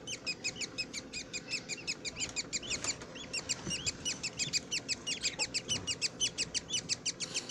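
Two-week-old budgerigar chicks chirping: a rapid, even stream of short high chirps, about nine a second, that keeps going without a break.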